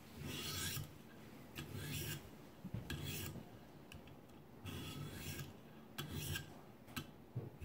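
A 1200-grit sharpening stone on a ViperSharp guided rod scraping along the steel edge of a Kershaw Blur folding knife in about six separate strokes with short pauses between, touching up a slightly dull edge.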